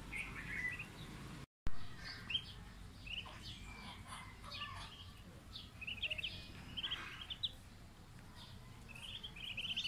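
Muscovy ducklings peeping in quick runs of short, high notes, over and over.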